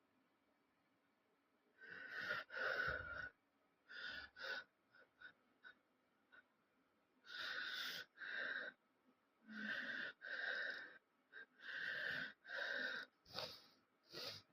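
Wheezy, rasping breathing of a person sick with a cold and sore throat, in about half-second breaths that mostly come in pairs with pauses between.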